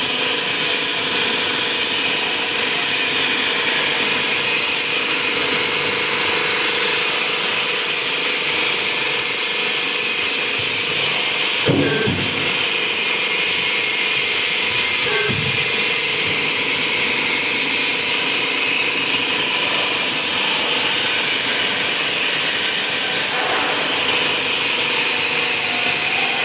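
Drawer slide guide rail roll forming machine running, a steady mechanical noise with a constant hum and whine, and two short knocks about twelve and fifteen seconds in.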